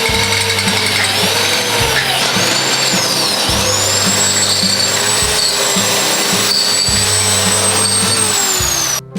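Electric power tool running with a high whine whose pitch sags and recovers as it works, over background music with a steady beat; both cut off suddenly near the end.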